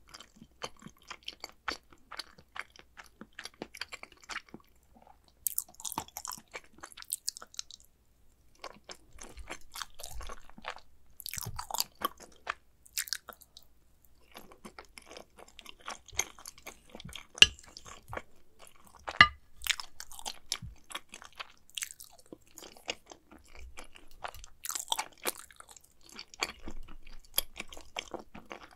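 Close-miked chewing of mac and cheese: wet, sticky mouth sounds made of many small irregular clicks and smacks, in bouts with short pauses. A couple of sharper, louder clicks come a little past the middle.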